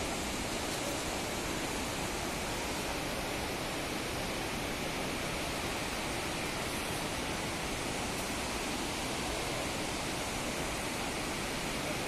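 Steady, even rush of a rocky mountain river and waterfall.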